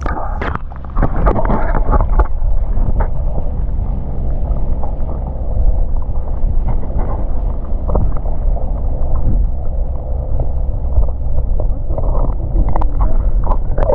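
Wind buffeting the microphone: a loud, unsteady low rumble, with scattered short knocks from handling.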